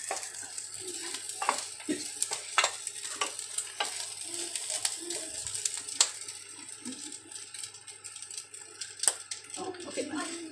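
Clam meat and sliced onions dry-frying in a pan with a steady sizzle, nearly done. A spatula scrapes and clicks irregularly against the pan as the mixture is stirred, the sharpest knock about six seconds in.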